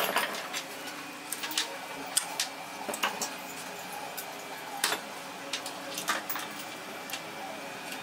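Irregular small metallic clicks and taps as gloved hands handle and slide off gears and a washer from the crankshaft and balancer shafts of an opened motorcycle engine case.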